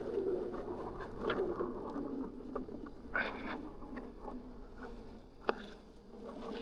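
Electric unicycle riding over a rocky dirt trail: rolling tyre noise with scattered knocks, the sharpest about five and a half seconds in.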